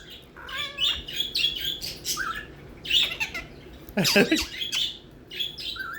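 Pet parrot chattering: a quick string of short squawks, chirps and whistles, with a louder, longer call about four seconds in.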